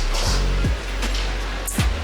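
Background music with a deep bass line and a kick-drum beat, with cymbal hits over it.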